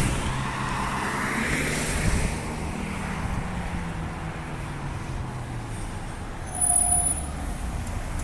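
A route 999 bus drives past, its engine note falling over the first few seconds. There is a brief high-pitched tone about seven seconds in.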